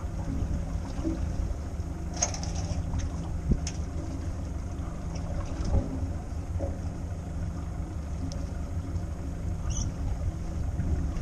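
Small fishing boat's engine idling with a steady low rumble, with a few sharp knocks about two, three and a half and six seconds in.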